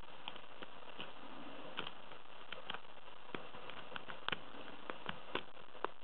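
Lock pick working the pin stack inside a small brass padlock: light, irregular metallic clicks and ticks, a few sharper ones in the second half, over a steady hiss.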